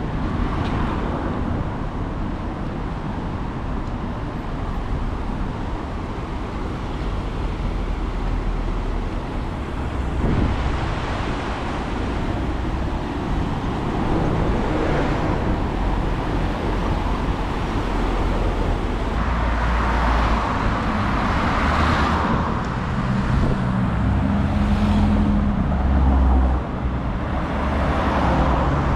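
City street traffic: cars passing one after another, each rising and fading over a steady background rush. Near the end a heavier vehicle's engine adds a low hum.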